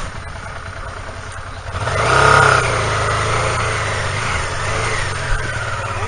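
Honda Deauville motorcycle's V-twin engine running low, then revving up about two seconds in as the bike pulls away, and running on steadily under power.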